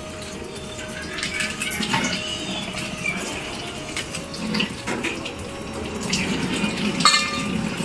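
Water running from a kitchen tap into a steel sink, with a few short clicks and knocks.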